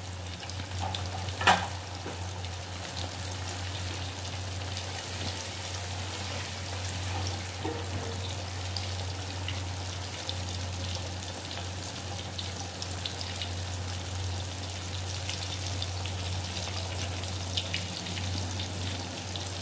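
Flour-coated chicken pieces deep-frying in hot oil in a wok: a steady sizzle with fine crackles, and a steady low hum under it. A single sharp clink about a second and a half in.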